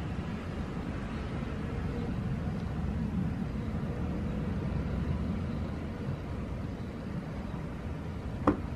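Steady low rumbling background noise, with one sharp click about eight and a half seconds in.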